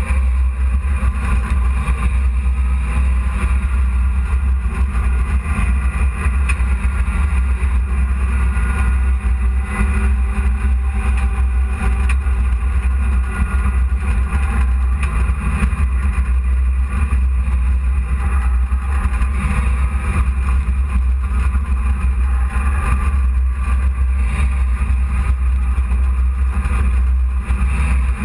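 Dirt-track race truck's engine running steadily, heard from inside the cab as a constant heavy low rumble with road and wind noise over it.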